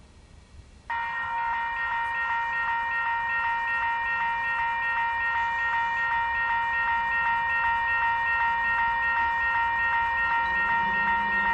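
Railroad grade crossing bell starting to ring abruptly about a second in, then ringing steadily and rapidly as the crossing signals activate for an approaching train.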